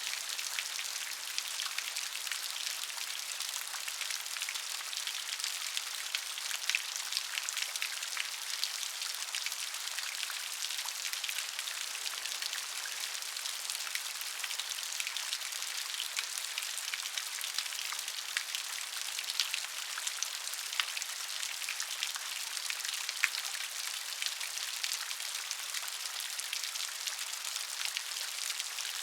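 Steady rain, a dense hiss of many drops with individual drop ticks pattering on a surface.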